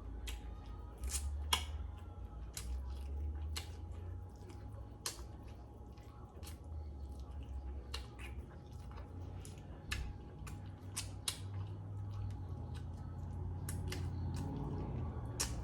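Close-up eating sounds: a mouth chewing saucy chicken wings, with irregular sharp smacks and clicks, a couple each second.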